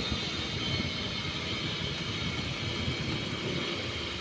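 Air cooler's blower fan running at its top speed, a steady rush of air. A faint steady hum joins about three and a half seconds in.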